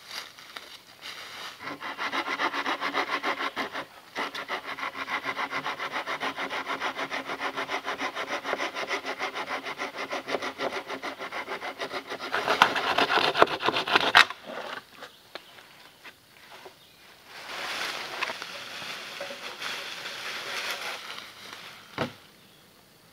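Hand saw cutting through a dead log in quick, even back-and-forth strokes, briefly pausing once, then speeding up and ending in a sharp crack a little past halfway. Afterwards, softer rustling and a single knock.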